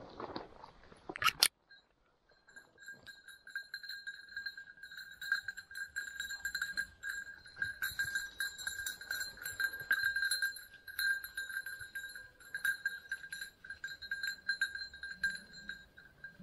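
A single loud shotgun shot about a second in. After a moment of quiet, a dog's collar bell rings steadily, jingling with each stride as the dog moves through the cover.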